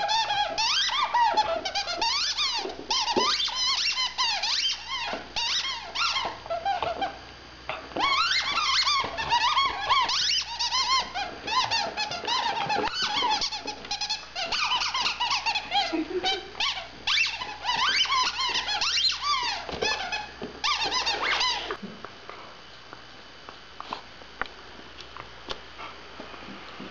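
A dog's squeaky toy squeaked rapidly and over and over as the dog bites it in play, with a short break about seven seconds in; the squeaking stops about 22 seconds in.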